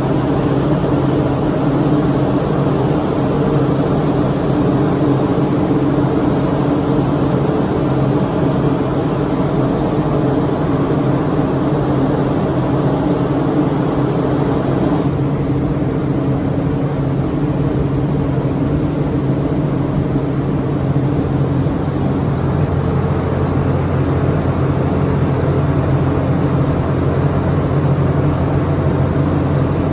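Electro-hydraulic power unit of a rescue boat slewing davit running steadily as the boom is slewed, a continuous mechanical hum that changes slightly about halfway through.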